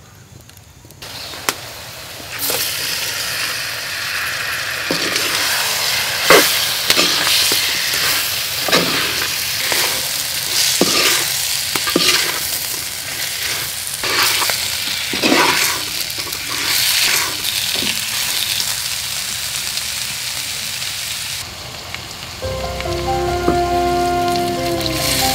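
Prawns sizzling as they are stir-fried in a clay pot, with a wooden spoon repeatedly scraping and knocking against the pot. Near the end the sizzle quietens and music comes in.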